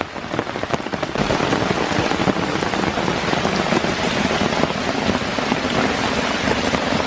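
Heavy rain pouring down: a dense, steady hiss of falling rain with many individual drops ticking on surfaces close by, growing louder about a second in.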